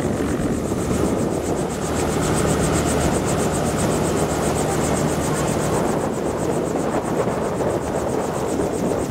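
Light helicopter running on the ground with its rotor turning at idle: a steady engine and rotor noise with a fast, even flutter.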